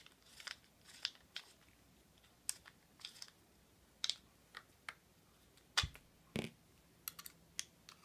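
Small clicks and ticks of an Allen wrench and screws working in a polymer angled foregrip as its Allen screws are taken out, with two louder knocks around six seconds in.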